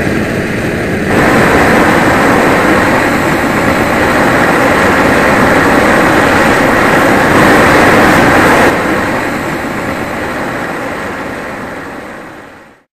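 Loud, steady rushing roar from the pipe fitted to the rear bumper of the propane-converted Husqvarna 316TXs ride-on mower, set off by the spare choke lever. It starts suddenly, grows louder about a second in, drops back near nine seconds and fades out just before the end.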